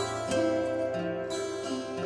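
Background film music: plucked string notes ringing in a slow melody.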